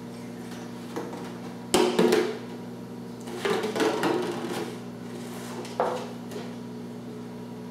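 A few sharp knocks and a short clatter of household objects being handled, over a steady low hum: one knock a little under two seconds in and another near six seconds.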